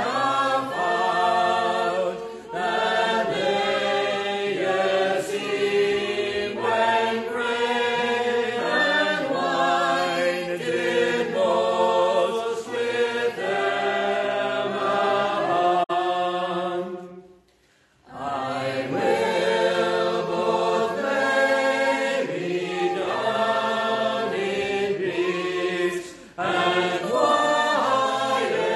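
A congregation singing a metrical psalm unaccompanied, in slow sustained notes, with a brief break between lines about two-thirds of the way through.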